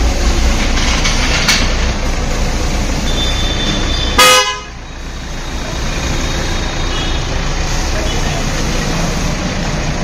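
A car horn toots once, briefly, about four seconds in. Under it, the steady low rumble of the Tata Nexon's diesel engine as the SUV rolls slowly out, with street traffic.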